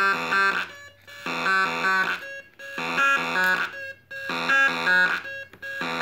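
Homemade breadboard drum circuit playing a looping electronic pattern: a quick run of short buzzy beeps at a few stepped pitches, repeating about every second and a half.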